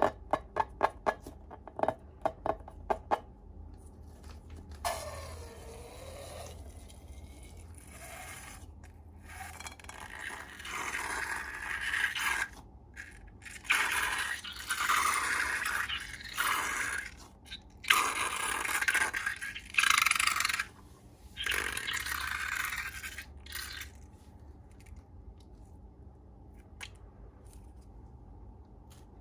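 Slime being worked by hand or with a tool: a quick run of sticky clicks and pops, then a series of wet scraping, squishing strokes.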